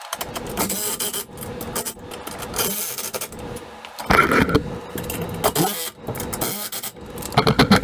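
Cordless drill or driver running in several short bursts on bolts through the steel carrier frame, with knocks between the bursts.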